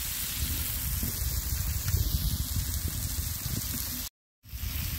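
Food sizzling as it fries, a steady crackling hiss; the sound cuts out for a moment about four seconds in.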